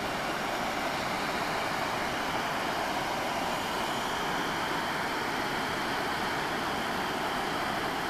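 Tia Falls waterfall: a steady, even rushing of falling water.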